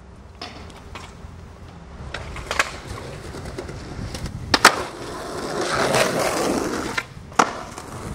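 A skateboard rolling on pavement, its wheels giving a steady rumble, with sharp clacks of the board. The loudest clack comes about halfway through, with another near the end. The wheel noise swells for a couple of seconds after the loudest clack.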